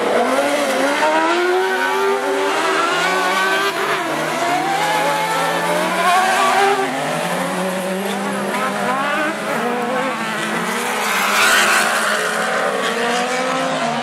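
A pack of superbuggy race cars racing on a dirt autocross track: several engines revving at once, their pitches rising and falling and overlapping. A louder rush of noise comes a little past eleven seconds in.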